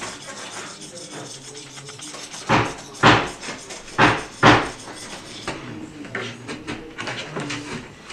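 Four loud strokes of wood-carving hand tools at work, in two pairs about a second apart.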